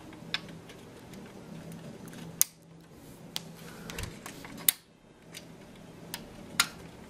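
Small, sharp plastic clicks and taps, a handful of separate ones, as a small part is worked into a plastic scale-model truck cab by hand and with a slim tool.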